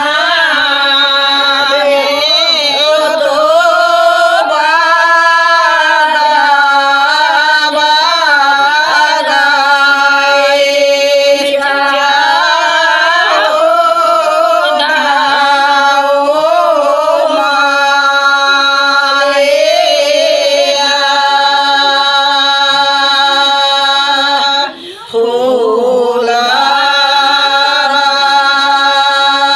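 Women singing a Bagheli wedding folk song (vivah geet) together, the lead voice in long wavering phrases, with a short break about 25 seconds in.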